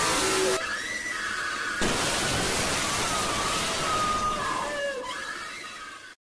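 A distorted horror-style sound effect of harsh noise with faint wavering tones drifting over it. The noise grows fuller about two seconds in and cuts off suddenly near the end.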